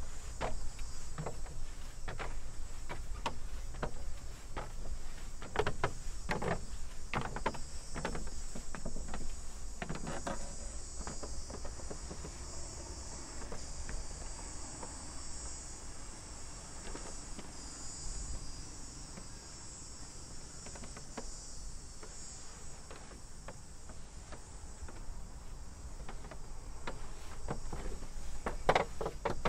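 A steady high-pitched chorus of insects, with footsteps knocking now and then, the loudest footsteps near the end.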